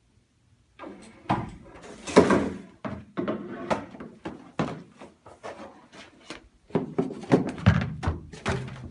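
Books stood on end as dominoes toppling one after another: a run of irregular knocks and thuds starting about a second in, loudest in a dense clatter about two seconds in.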